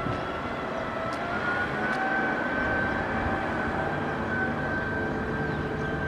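Kubota M6040SU tractor's diesel engine running steadily while pulling a disc harrow, with a high whine that drifts slightly in pitch.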